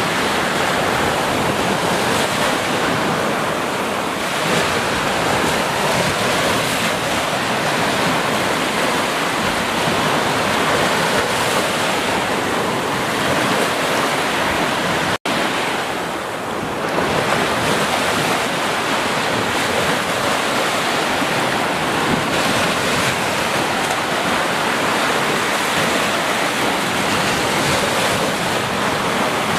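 Ocean surf: small waves breaking and washing up the sand in white foam, a steady rushing wash. The sound cuts out for an instant about halfway through.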